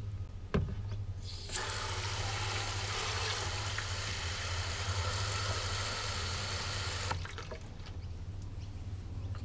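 Water from a garden hose spray gun pouring into a car's windshield washer fluid reservoir through its filler neck, a steady rushing hiss that starts about a second and a half in and shuts off abruptly about two seconds before the end. A short knock sounds about half a second in.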